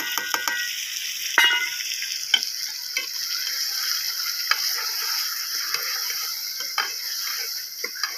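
Chicken and masala sizzling in ghee in a steel handi pot, stirred with a metal spoon that clinks and scrapes against the pot every second or so. A few of the clinks in the first two seconds ring briefly.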